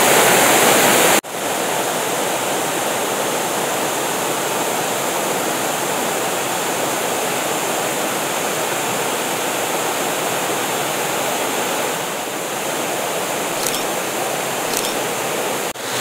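Waterfall cascading over rock ledges into a pool, a steady rush of falling water. It is louder for the first second, then drops abruptly at a cut to a wider view and stays even.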